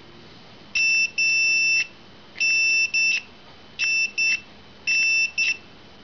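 Digital multimeter's continuity beeper sounding in about eight irregular beeps of one high tone, some brief and some nearly a second long. The beeps come and go as the ignition switch's contact makes and breaks while the key is wiggled: an intermittent connection, which the tester cannot yet put down to the switch or to the meter.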